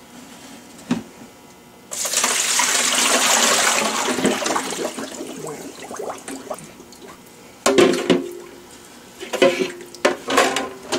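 Water from an Aerogarden reservoir bowl poured out into a stainless steel kitchen sink: a sudden rush about two seconds in that tapers off over several seconds. Near the end come a few knocks and clatters as the emptied plastic bowl is handled against the sink.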